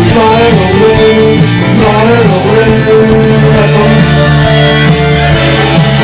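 Pop-rock band music led by guitar and keyboard, with a melody line that bends up and down in pitch and no sung words.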